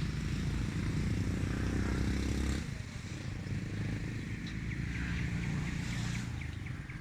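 Road traffic: a motor vehicle engine runs nearby and drops away about two and a half seconds in, then another engine passes a few seconds later.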